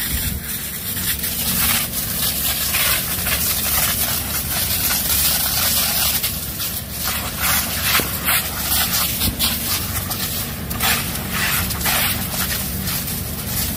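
Large fire of burning brush and trees crackling and popping, with sparks and embers flying, over a dense hiss and a steady low hum.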